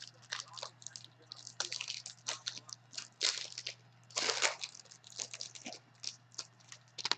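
Foil trading-card pack wrapper crinkling as it is peeled open by hand, in a string of uneven, short crackles.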